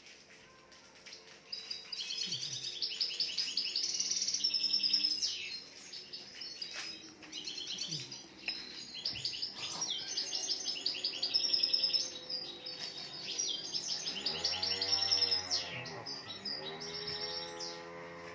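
Caged songbird singing long phrases of fast, rapid trills and chirps. The song starts about a second and a half in and runs on with short breaks almost to the end.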